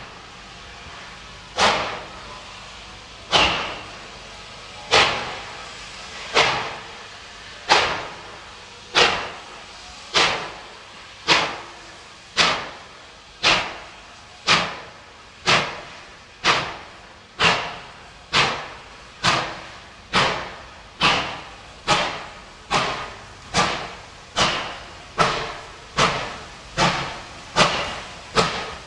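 Steam locomotive 3801, a two-cylinder NSW C38 class Pacific, getting under way: sharp exhaust beats from its chimney that quicken steadily from about one every second and a half to nearly two a second as the engine picks up speed.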